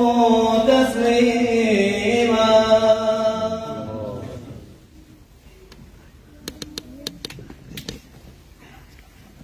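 A man chanting an Arabic verse unaccompanied, one long drawn-out line that falls in pitch and fades out about four and a half seconds in. Then a few faint clicks and knocks.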